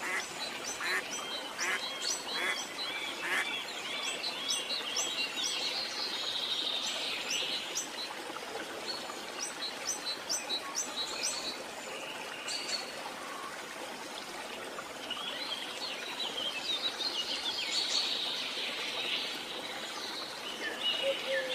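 Several birds calling and chirping over steady outdoor background noise, with quick runs of short, high, repeated calls in the first few seconds and again in the second half.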